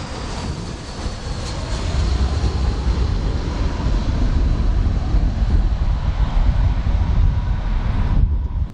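Jet airliner landing close by: a heavy low rumble of its engines, with a faint high whine slowly falling in pitch, growing louder about two seconds in and cutting off suddenly near the end.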